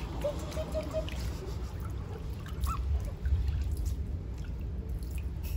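Water trickling and dripping over a steady low rumble, with a few short high chirps in the first second.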